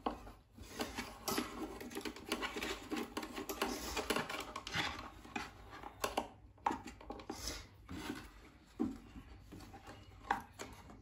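Handling noise: hands and speaker wire rubbing and scraping against the inside of an open wooden speaker cabinet, with a few short knocks near the end as the back panel is fitted.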